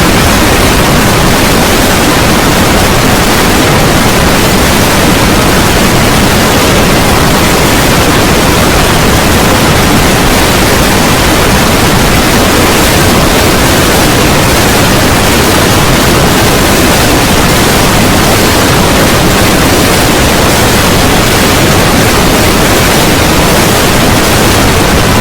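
Loud, steady wall of harsh static-like noise spread evenly across all pitches, with no tones, rhythm or breaks: audio distorted and clipped until nothing recognisable is left.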